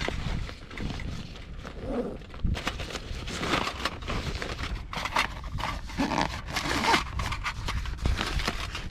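Irregular rustling and scraping, busiest from about two and a half seconds in until near the end, over a low rumble.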